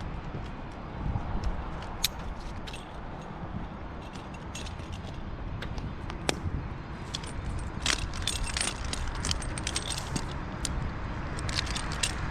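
Climbing gear clinking and twigs crackling as a tree climber moves among the branches: scattered sharp clicks, busier in the second half, over a steady low rumble.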